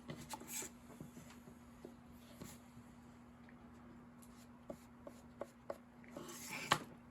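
French-polishing pad rubbed over a wooden molding: faint scratchy swipes and light knocks, with a longer rub near the end, over a steady low hum.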